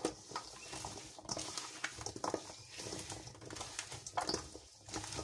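Hand mixing raw carrot sticks with a wet seasoning paste in a stainless steel bowl: irregular soft knocks and rustles as the carrots are tossed against the steel.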